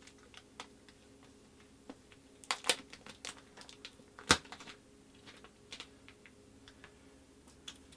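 Protective plastic wrapping being peeled and handled off a new iMac: scattered small clicks and crinkles, with a few louder crackles about two and a half seconds in and a sharp snap just after four seconds, over a faint steady hum.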